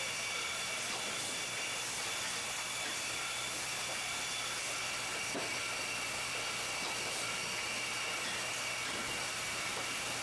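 Automatic box-wine packaging line with a vertical cartoner running: a steady mechanical hiss and hum with a few faint knocks.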